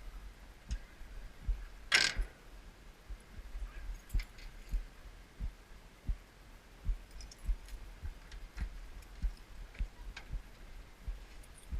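Irregular low thumps roughly every second, with scattered light clicks and one sharp crackling knock about two seconds in.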